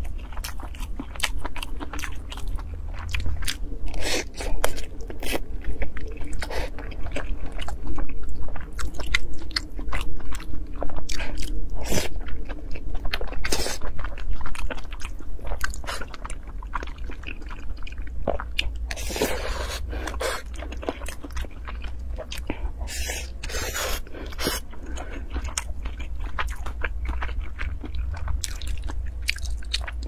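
Close-miked chewing and biting of braised pork belly and rice: many quick wet mouth clicks and smacks, busiest in the first half, over a steady low hum.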